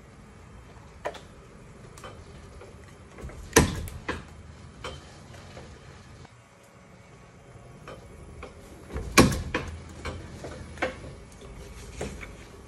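Chandler & Price platen letterpress being hand-fed. It gives two heavy clunks about five and a half seconds apart as the platen closes for impression. Lighter clicks and knocks from the mechanism and the card stock fall between them.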